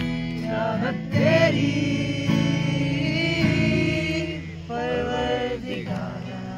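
A small group of friends singing together to an acoustic guitar, holding a long note through the middle, then trailing off near the end.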